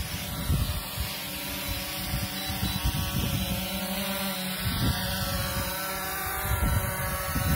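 DJI Phantom 3 Professional quadcopter's propellers and motors whining steadily as it hovers and descends to land, with gusts of wind buffeting the microphone.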